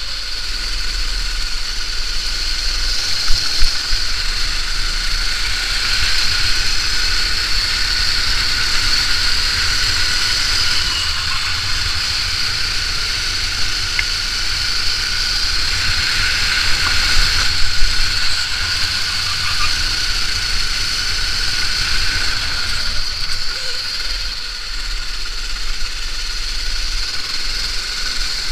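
Go-kart engine running steadily at racing speed, heard from onboard with a steady high whine and wind rumble on the microphone. A few short sharp knocks stand out, once near the start and again about midway.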